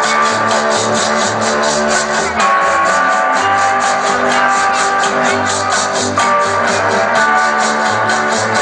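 Dance music with guitar and a quick, steady beat, playing for a dance troupe's routine.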